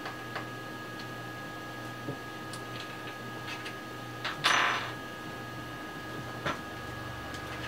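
Hand screwdriver clicking against the case screws of an Astron SS-30M power supply as they are backed out. About four and a half seconds in, a loose screw clatters onto the wooden desk.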